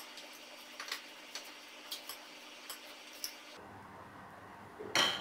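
Wooden spoon clicking and scraping against a plastic food-chopper bowl as ground fried peanuts are tipped out into a glass dish: a string of light clicks, roughly two a second, then a single louder knock near the end.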